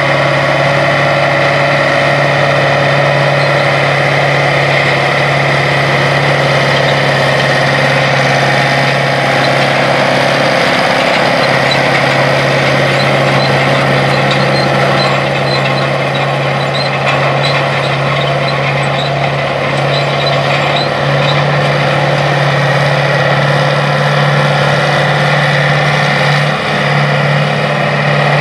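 International Harvester 4786 tractor's IH DV-800 V8 diesel engine running steadily under load while pulling a tillage implement through the field.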